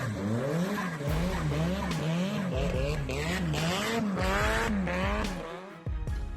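Nissan Silvia's engine revving up and down in quick pulses, about twice a second, as the car drifts on snow, with a hiss of spinning tyres. The engine drops away near the end.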